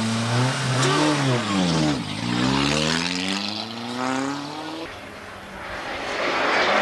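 A motor-vehicle engine revving, its pitch rising and falling; it dips about two seconds in, then climbs steadily for nearly three seconds before dropping away.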